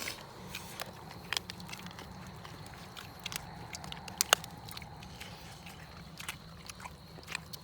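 People eating: scattered small clicks and knocks of utensils and dishes with some chewing, the sharpest click a little past four seconds in, over a steady low hum.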